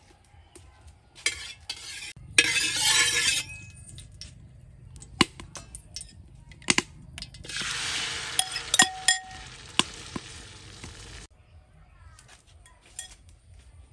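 Hot oil sizzling in a metal wok: a short loud burst about two seconds in and a longer stretch from about halfway that cuts off suddenly, with a metal spatula clinking against the wok.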